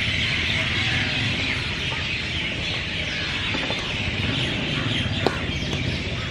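Dense, continuous chatter of many birds. Sharp crack of a racket striking the shuttlecock about five seconds in.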